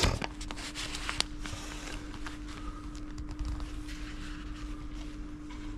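A steady electrical hum on one pitch, with a sharp click right at the start and a few fainter clicks and knocks about a second in, typical of small objects being handled at a counter.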